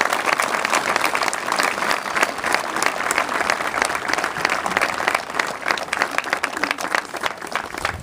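A large crowd applauding, many hands clapping steadily, thinning out near the end.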